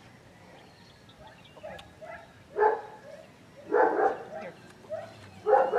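German Shepherd puppy barking up at its handler: a few soft yips, then three louder barks spaced a second or more apart in the second half.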